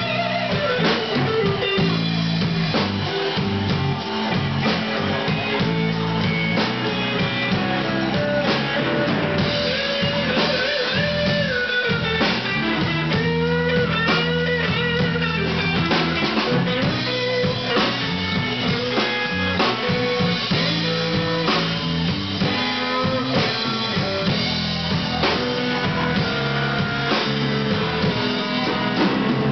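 Live blues band playing an instrumental stretch: electric guitar lead lines with bent notes over a drum kit.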